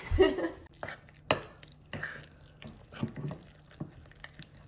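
Thick peanut-butter cake batter being stirred in a bowl: wet, sticky scraping with irregular knocks and clicks of the utensil against the bowl, the loudest about a second and a half in.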